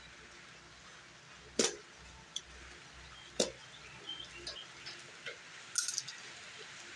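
Steady hiss of rain falling, with three sharp clicks and a few lighter ticks, like packaging being handled.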